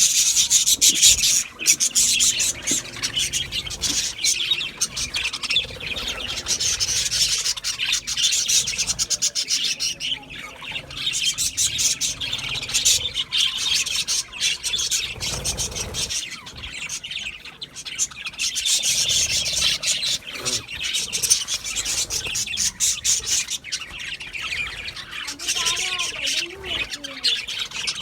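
A group of budgerigars chattering continuously, a dense mix of rapid high chirps, warbles and squawks.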